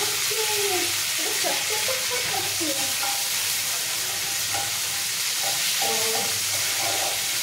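Curry leaves, cumin and mustard seeds sizzling steadily in hot oil in a frying pan while a steel spoon stirs them: a tadka being tempered.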